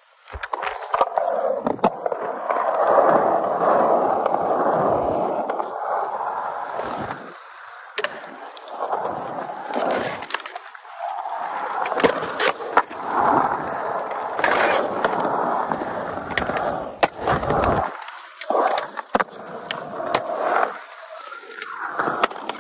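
Skateboard wheels rolling across a smooth concrete bowl, the rolling noise swelling and fading as the board carves up and down the walls. In the second half there are several sharp clacks of the board and trucks hitting the coping and the concrete.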